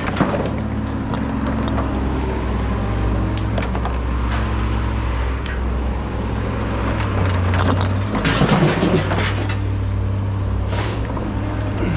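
A vehicle engine running steadily with a low hum, with scattered metal clanks and knocks from scrap being handled, and a louder surge of the engine or a heavy clatter about eight and a half seconds in.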